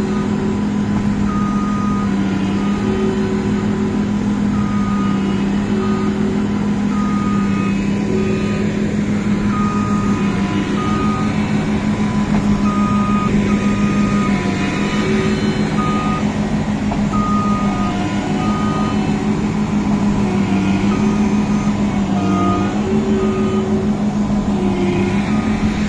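Massey Ferguson CS6050 combine harvester running steadily, with short electronic beeps repeating about every second or two over the engine.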